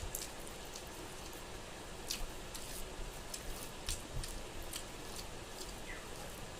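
Chewing and lip-smacking of a person eating pork and rice, a series of short, irregular wet clicks over a faint background hiss.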